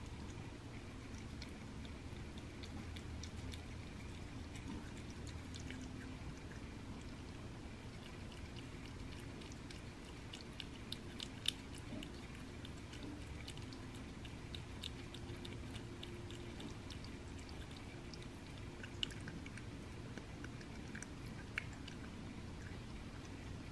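Cat eating thawed raw ground rabbit from a paper plate: faint wet chewing with scattered sharp clicks, a few louder ones about halfway through and near the end, over a steady low hum.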